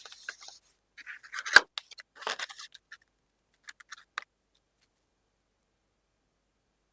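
Hands handling a smartphone's retail box and packaging: scratchy rustling and scraping with a sharp click about a second and a half in, and a few light clicks around four seconds.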